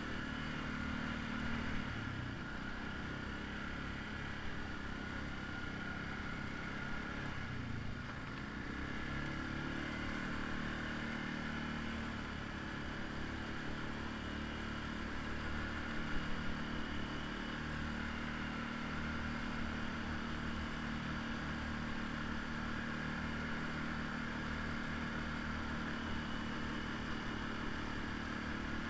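ATV engine running steadily, heard from on board the moving quad, its note dipping and then climbing again about eight seconds in. A few brief knocks come about sixteen seconds in.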